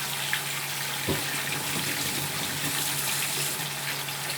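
Strips of fried-tofu skin frying in hot oil in a pan: a steady sizzle, with a single knock about a second in.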